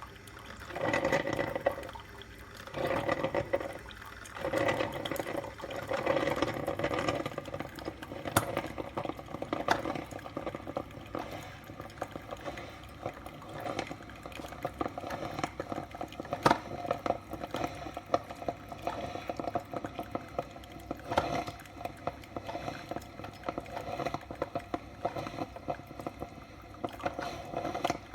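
Salter one-cup filter coffee maker gurgling and spurting as it heats water and pushes it through to brew. The surges come about every second and a half at first, then settle into a steady crackling sputter with sharp ticks.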